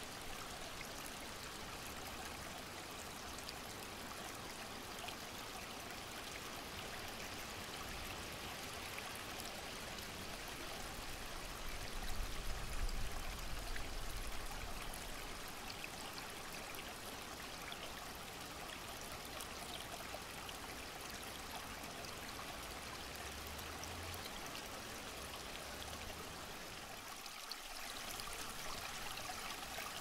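Water from a garden pond's rockery stream trickling and splashing steadily over stones. A low wind rumble swells for a few seconds about twelve seconds in.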